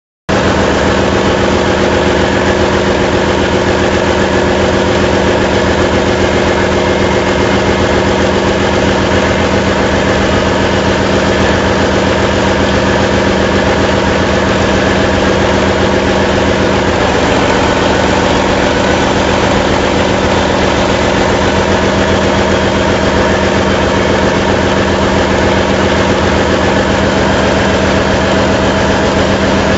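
Ship's diesel generator set running at a steady speed: a loud, even engine drone with a constant hum, cutting in abruptly from silence right at the start.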